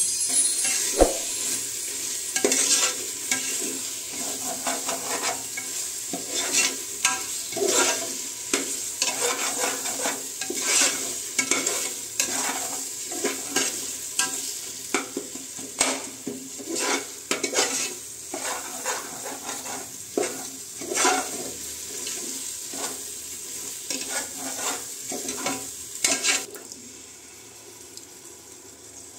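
Metal ladle stirring and scraping biryani masala in an aluminium pressure cooker, with irregular scrapes and clinks against the pot over the masala sizzling in oil. About three seconds before the end the stirring stops and the sound drops.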